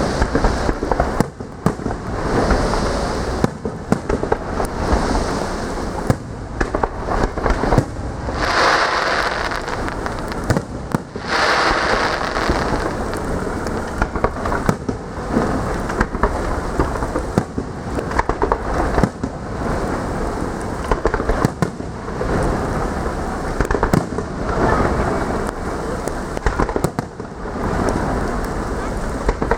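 Fireworks display: a dense, continuous run of bangs from bursting shells over steady crackling, with two louder stretches of crackle a little under halfway through.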